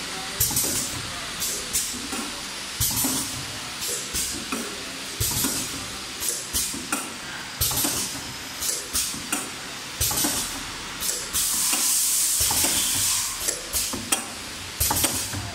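Wet wipes making and packaging machine running: a steady run of short mechanical clacks with bursts of hiss, and a longer hiss lasting about two seconds after ten seconds in.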